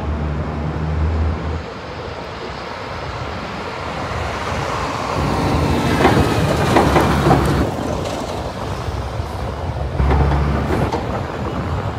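City street traffic: a steady rush of passing vehicles that swells to its loudest about six to seven seconds in. A heavy truck's engine rumbles close by from about ten seconds in.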